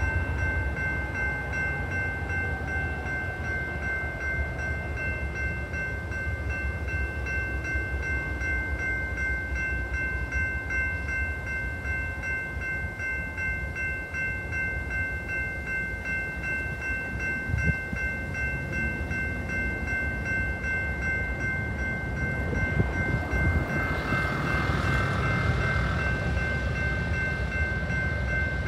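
GS Type 2 electronic bell on a railroad crossing signal ringing continuously with a fast, even dinging, sounding while a train holds the crossing circuit. Under it runs the low rumble of a diesel freight train standing nearby, and a car's road noise rises near the end.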